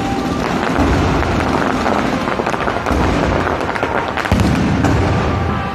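Aerial fireworks bursting overhead in quick succession: a dense crackle of many small reports under heavier booms, with a sudden louder bang about four seconds in.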